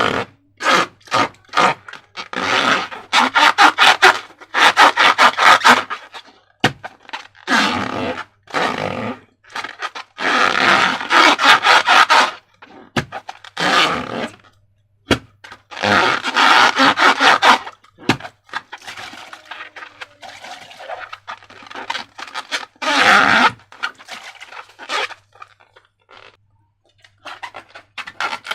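Slime being worked in repeated bursts of crackling, scraping clicks, each a second or two long, with short pauses between. A faint steady hum runs underneath.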